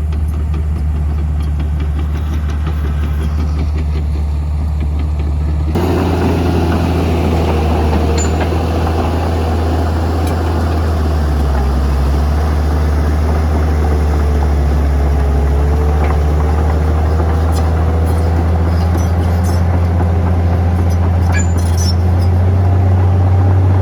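Bulldozer's diesel engine running steadily with a deep drone, dipping briefly in pitch under load near the middle. The sound shifts abruptly about six seconds in.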